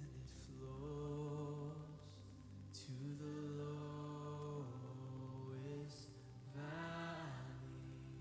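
Slow, soft music: a chant-like melody of long held notes that step up and down, with short pauses between phrases.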